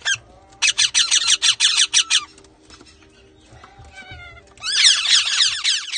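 Baby parrots calling: two loud bursts of rapid, high-pitched chirping, each lasting about a second and a half, with fainter calls in between. These are typical begging calls of hungry chicks.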